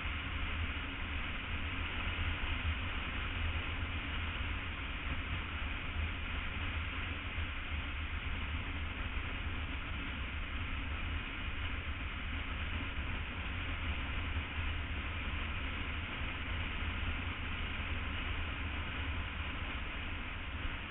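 BMW F800 ST motorcycle riding at a steady speed: a continuous, even rush of engine, road and wind noise over the microphone, with a deep rumble underneath.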